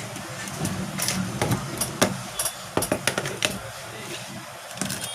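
Irregular clicks and scratches of small hand tools working on a smartphone's frame, over a steady background noise.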